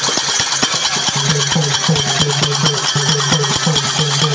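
Live folk music: a drum beats a fast, even rhythm of about five strokes a second, with small hand cymbals ringing and a low held note, likely from the harmonium.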